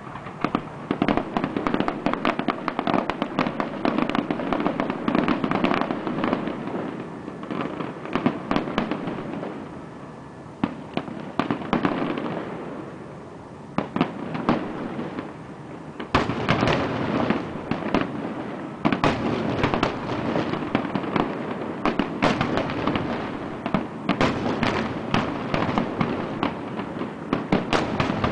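Fireworks display bursting in rapid volleys of overlapping bangs and crackles. It thins out about halfway through, then a fresh dense barrage of bangs starts.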